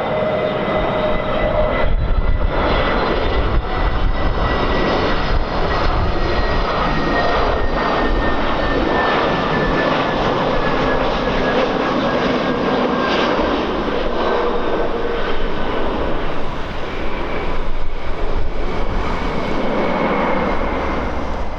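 Airliner's engines running close by, a steady loud roar with a high whine that slowly falls in pitch. Heavy low rumble from wind buffeting the microphone underlies it.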